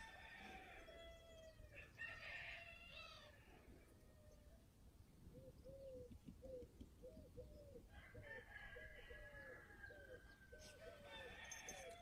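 Faint chickens: a rooster crowing in the first few seconds, then a run of short hen clucks, two or three a second, through the second half.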